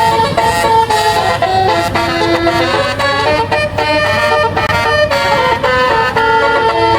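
Bus 'telolet basuri' multi-tone air horn playing a tune, held notes changing pitch every fraction of a second, over a steady low engine hum.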